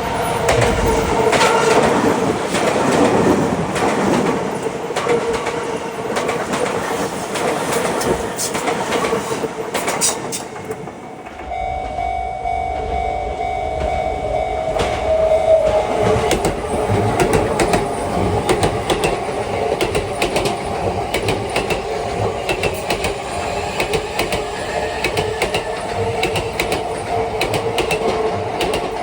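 Sotetsu commuter trains passing a railway level crossing while its warning bell rings steadily. A 10000 series train clatters past over the rail joints during the first ten seconds or so. After a brief lull about eleven seconds in, a 20000 series train comes through with a deeper rumble.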